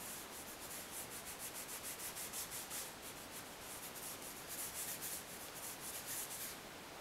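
Cloth rubbed quickly back and forth over a wet, glossy wood trim panel from a Maserati Biturbo interior as it is polished, a faint hiss with each stroke, about four strokes a second, stopping near the end.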